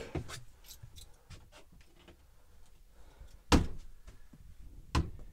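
Small clicks and taps of someone handling fittings in a small boat's cabin, with a sharp knock about three and a half seconds in and another near the end.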